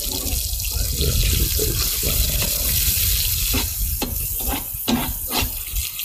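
Steady sizzling hiss of split lentils frying in oil in a large pan, with a few short knocks in the second half.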